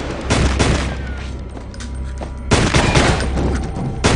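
Rapid pistol gunfire in three bursts of shots, just after the start, about two and a half seconds in, and again at the end, each shot trailing off in an echo, over a low steady rumble.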